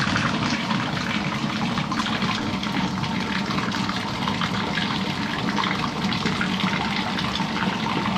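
Milk gushing steadily from a bulk tank's drain hose onto the concrete floor and into a floor drain, foaming as it spreads: a whole tank of milk being dumped.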